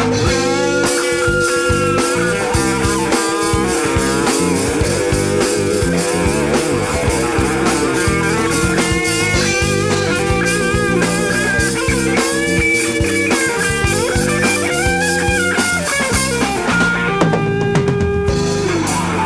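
Live rock band playing an instrumental break: a guitar plays a melodic lead with bent notes over drum kit and bass.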